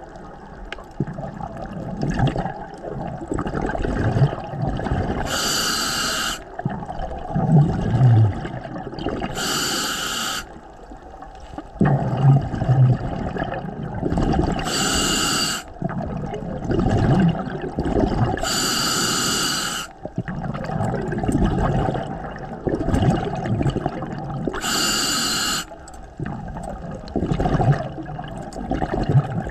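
Scuba diver breathing through a regulator underwater: a short hiss from the regulator about every four to five seconds, with a continuous bubbling, rumbling noise of exhaled air between.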